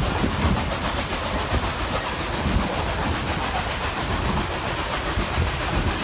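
Narrow-gauge steam train running, heard from an open passenger car: a steady rumble and rattle of wheels on the rails, with irregular low thumps.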